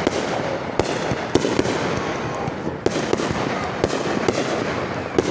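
Fireworks going off close by: a dense, continuous crackle with many sharp bangs, one or two a second.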